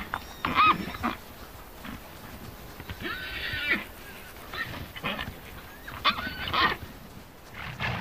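Przewalski's horses whinnying: about five separate quavering calls one after another, the loudest about six seconds in.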